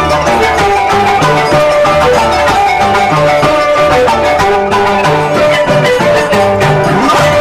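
Andean folk music on violin and harp, the kind of tune that accompanies the Peruvian scissors dance (danza de tijeras), with a held melody over repeating plucked bass notes.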